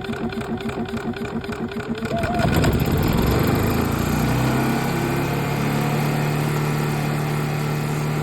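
4,000-watt RV generator's engine running rough after a pull start, pulsing with a wavering whine; about two seconds in it gets louder and settles into a steady low running note. The rough running is the fault being diagnosed.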